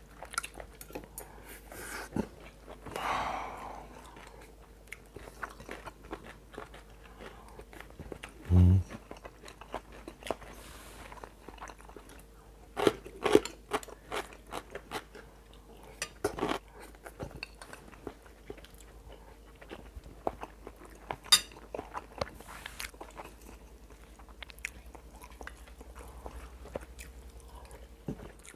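Close-up chewing and crunching of sea cucumber rice, the sea cucumber pieces crisp and chewy, with small clicks of a metal spoon against a ceramic bowl. A short low hum-like sound about eight and a half seconds in.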